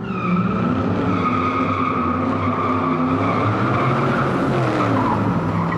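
Car burnout sound effect: tires squealing steadily over a running engine whose pitch rises and falls.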